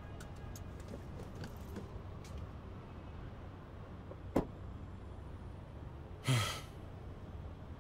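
A car door being handled: faint clicks, then one sharp click about halfway through as the door is opened or shut. Near the end a short, louder breathy sigh.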